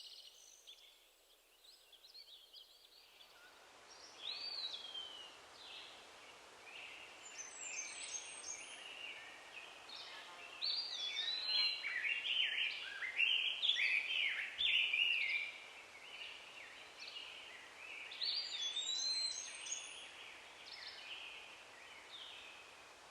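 Birds singing in short, repeated phrases of chirps and down-sweeping whistles, starting about four seconds in, over a faint steady hiss.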